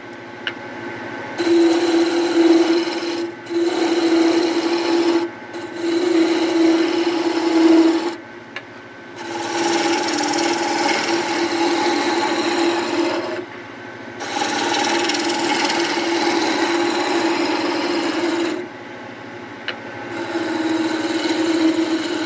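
Wood lathe spinning a fir tool handle between centres while a spindle roughing gouge cuts it in about six passes of a few seconds each, a hissing scrape with a steady tone. Between passes, in short pauses, only the lathe's motor hum is left.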